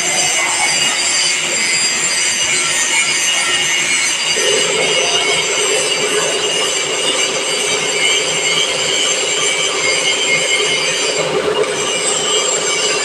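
Milling machine cutting a workpiece: a steady grinding cutting noise with several high whining tones over it, and a lower hum joining about four seconds in.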